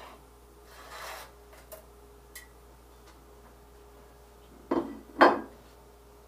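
Metal baking tray and dishes clattering as sweet potato fries are handled: a soft scrape and a few light clicks, then two loud clanks near the end, over a faint steady hum.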